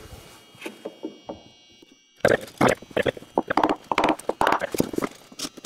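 A quick, irregular run of sharp knocks on a wooden mud sill, such as a hammer tapping the board. The knocks start about two seconds in, after a few softer knocks.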